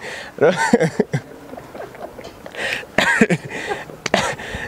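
Two men laughing heartily in several bursts of short voiced 'ha' sounds, with quieter stretches in between.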